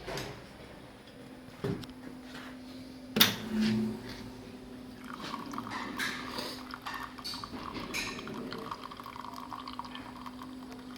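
Commercial coffee machine dispensing. A sharp click comes about three seconds in. A low steady hum runs under coffee pouring and dripping into a cup.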